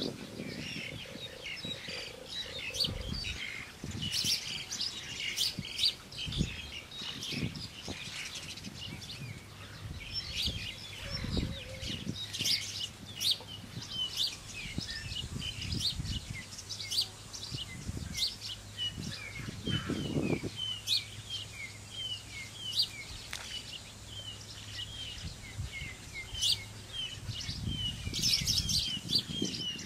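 Small birds chirping over and over with short, quick calls, while wooden poles knock and clatter now and then as they are handled and fitted into a hut frame.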